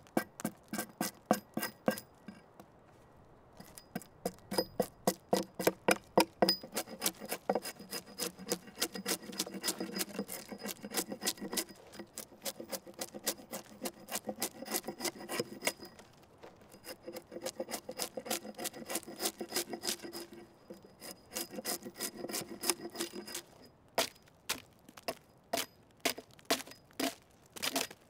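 Small axe blade scraping and shaving a dry log in quick repeated strokes, about three a second, with a short pause about two seconds in. The strokes turn sparser and crisper near the end.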